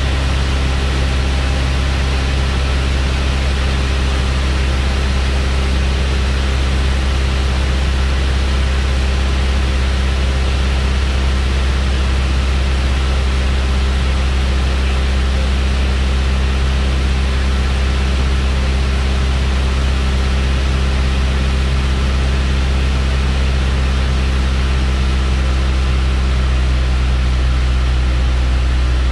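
Light aircraft's piston engine and propeller running at a steady, even drone, heard from inside the cabin, over a constant rush of air noise.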